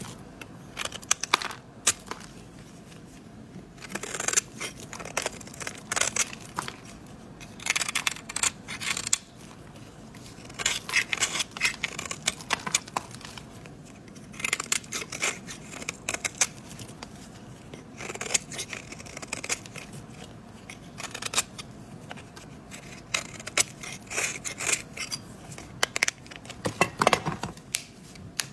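A knife cutting and carving into a bar of soap. Crisp, crackling scrapes come in short bursts every second or few seconds, with brief pauses between them.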